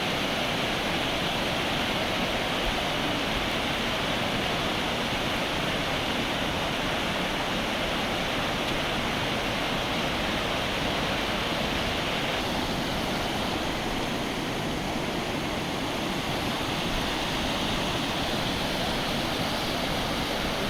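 The Lidder, a fast glacier-fed mountain river, rushing: a steady, even noise of running water throughout.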